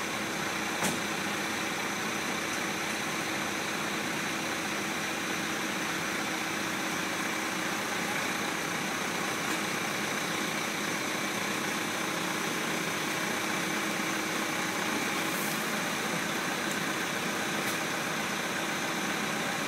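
A steady idling engine with a constant hiss, unchanging throughout, and a single click about a second in.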